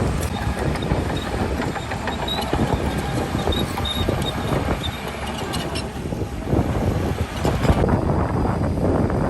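Heavy diesel earthmoving machinery at work: a low engine running steadily under many short clanks and rattles, growing louder and rougher in the last few seconds.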